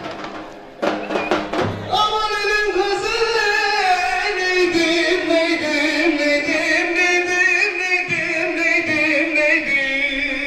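Middle Eastern-style folk music with singing: a few sharp drum strokes about a second in, then a long wavering melodic line held without a break.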